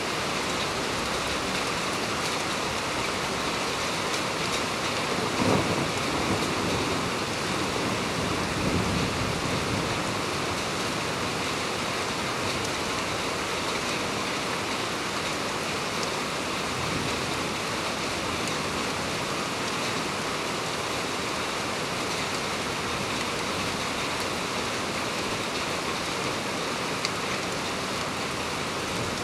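Heavy rain pouring down steadily as an even hiss. Low rumbles of thunder swell up about five seconds in and again around nine seconds.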